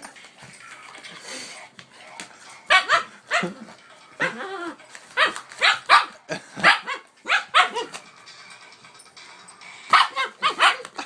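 Siberian husky puppy barking and yipping: a run of about a dozen short, pitched barks, a pause of about two seconds, then four more quick barks near the end.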